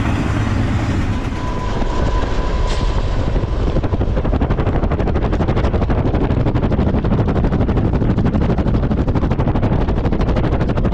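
BNSF freight train running by, a steady heavy rumble that turns into a fast, even rattle from about four seconds in.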